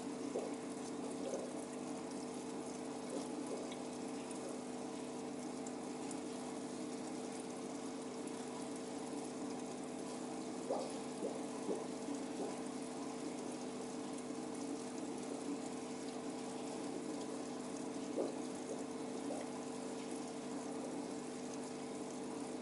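Aquarium pump humming steadily, with water moving and a few faint pops.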